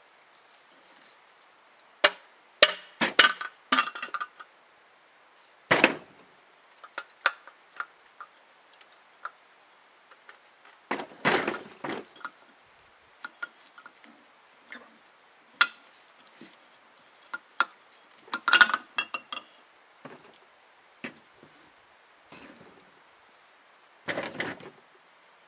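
Metal parts of a Duo-Fast CN350 framing nailer being handled during disassembly: irregular clinks, taps and knocks as the cylinder is worked out and set down, in scattered clusters, over a steady high-pitched background tone.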